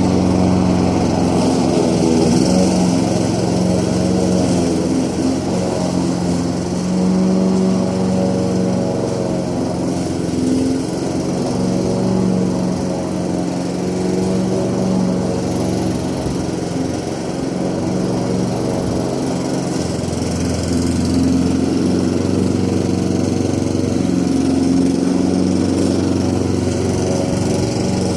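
Petrol lawn mower engine running steadily, its pitch wavering slightly.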